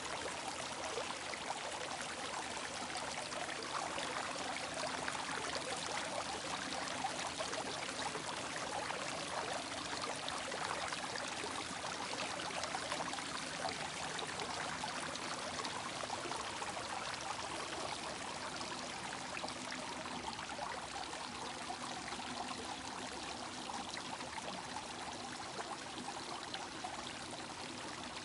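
Small water fountain running steadily, water splashing and trickling continuously.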